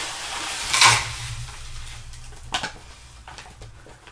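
Exo Terra Desert Stone, a dry sandy substrate, being poured into a plastic enclosure bin with a steady grainy hiss, loudest about a second in. It tails off after about two and a half seconds, ending with a light knock.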